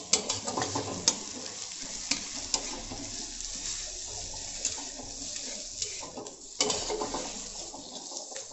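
Chopped onions sizzling in oil in a brass kadhai on high flame, browning after turning translucent, while a metal spatula stirs and scrapes them with sharp clicks against the pan. The stirring clatter is busiest at the start and again about two-thirds through.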